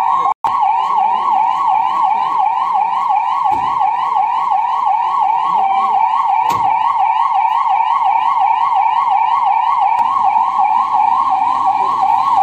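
Ambulance's electronic siren on a fast yelp: a rising wail repeating about three times a second. The sound cuts out for an instant about half a second in.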